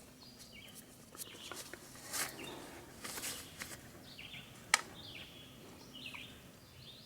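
Quiet woodland ambience with faint, scattered bird chirps, a few soft rustles and one sharp click near the middle.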